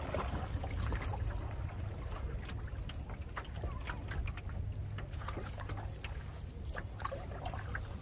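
Canoe paddle strokes in lake water: repeated splashes and drips, over a steady low rumble.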